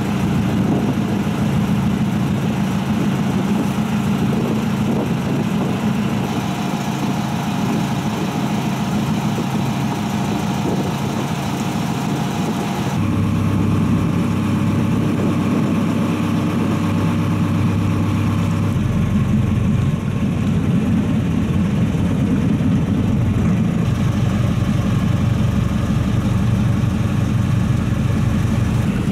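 A motorboat engine running steadily on choppy open water, over a hiss of wind and water. The pitch of the engine hum changes abruptly a little before halfway through and again about four fifths of the way in.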